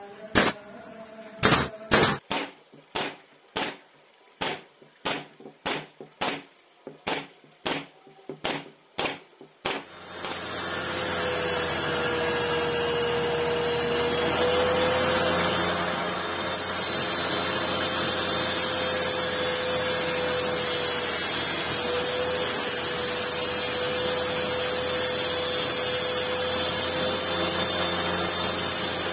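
Pneumatic nailer firing about twenty times in quick succession, roughly two shots a second, fastening wood. About ten seconds in, an electric motor starts and runs steadily with a constant hum.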